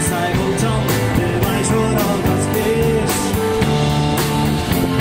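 A live band playing rock music: guitars, a drum kit keeping a steady beat, and a singing voice.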